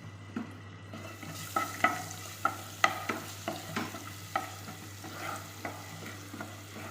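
Ginger-garlic paste sizzling in hot sunflower oil in a pan, stirred with a spoon that scrapes and taps against the pan two or three times a second. The sizzling picks up about a second in. It is the early sauté that cooks off the paste's raw smell.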